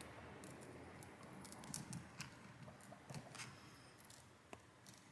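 Faint, scattered sharp clicks and light scraping of a small repair tool prying at cracked phone camera glass as the pieces are worked loose.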